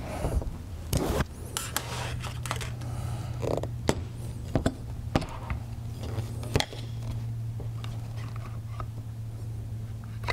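An FX Crown PCP air rifle being handled as its metal action is lifted out of the laminated wooden stock: scattered clicks, knocks and scrapes of metal against wood, over a steady low hum.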